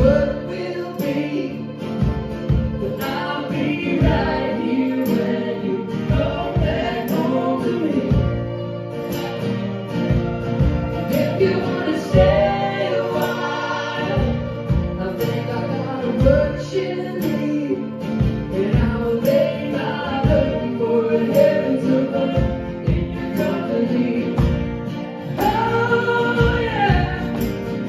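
Live folk-rock band playing with acoustic guitars, mandolin and drums, several voices singing in harmony over a steady beat.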